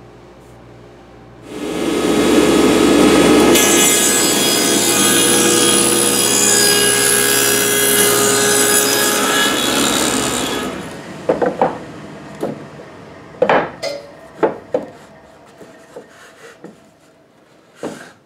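Table saw cutting through a thick plywood block: a loud, steady saw noise starts suddenly, grows brighter a couple of seconds later as the blade works through the wood, and stops abruptly about eleven seconds in. After it come several sharp knocks of the wooden pieces being handled on the saw table.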